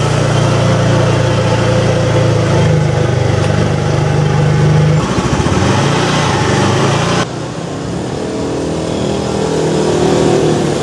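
Motor vehicle engine noise: a steady low hum for about five seconds, an abrupt change about seven seconds in, then an engine note rising in pitch near the end.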